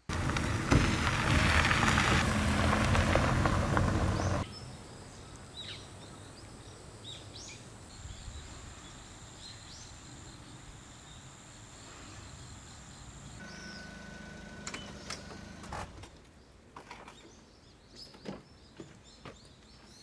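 A loud rushing noise for about four seconds that stops abruptly, then quiet outdoor ambience with scattered bird chirps, and a few clicks and knocks near the end.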